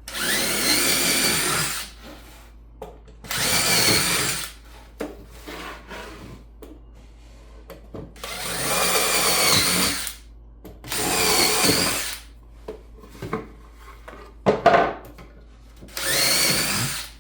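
Power drill with a 1/4-inch bit drilling starter holes through a pine board, in five bursts of one to two seconds with short pauses between them.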